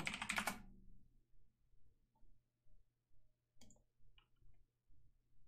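Quiet clicking of a computer keyboard and mouse: a short run of keystrokes at the start, then sparse faint clicks over a low steady hum.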